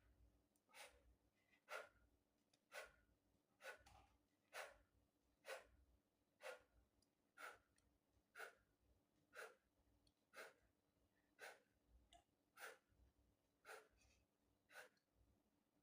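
A man's faint breathing in time with push-up repetitions: one short breath about once a second, evenly paced.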